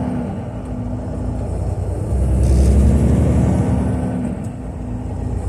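Semi truck's diesel engine and road noise heard from inside the cab while driving on the highway: a steady low rumble that swells louder for a couple of seconds in the middle.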